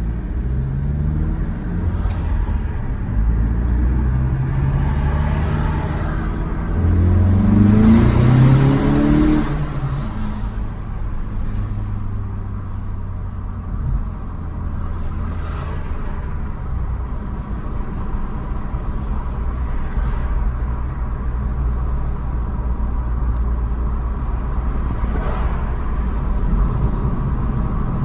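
2018 VW GTI's turbocharged EA888 four-cylinder, fitted with an aftermarket intake and turbo muffler delete, heard from inside the cabin. The engine note rises several times over the first ten seconds as the car accelerates, then settles into a steady lower drone at cruise.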